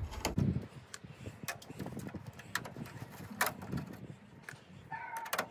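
A few light clicks and scrapes from a hand-held Torx key working stiff grille bolts and plastic grille trim, with a low thump near the start.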